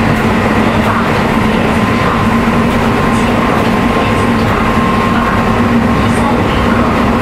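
Keisei 3700-series electric commuter train with Toyo GTO-VVVF traction drive running along the line, heard from inside the passenger car: a loud, steady rumble of wheels and running gear with a steady humming tone.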